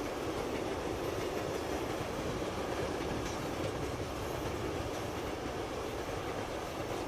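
Freight train wagons rolling past, a steady rumble of wheels on rail.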